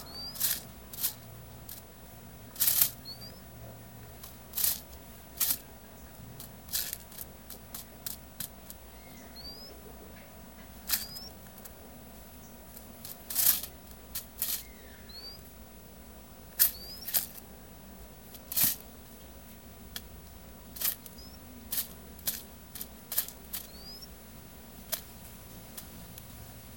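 Ground dove pecking at cracked corn and bread on a magazine page: irregular sharp taps of its bill on the paper, sometimes in quick pairs or triplets.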